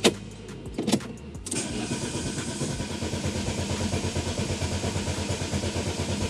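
Fiat Siena's engine being cranked by the starter: a couple of clicks, then a steady, fast rhythmic churning as it turns over without catching. The engine won't start.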